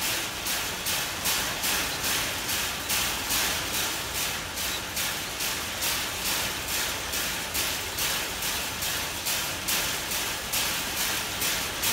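Chimpanzee striking the steel bars of its cage fence in a steady rhythm of about two to three strikes a second, each a sharp metallic clatter. It is a stereotyped repetitive behaviour of a captive chimpanzee, which the uploader counts as zoochosis.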